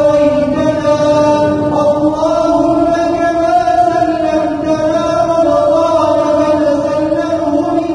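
A man's voice chanting an Arabic prayer melodically, holding long notes that step between pitches.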